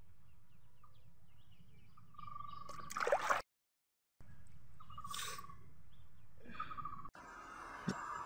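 Quiet outdoor background with a low rumble and faint bird chirps, broken by a few short louder noises; the sound cuts out completely for under a second midway. In the last second or so, water running and trickling.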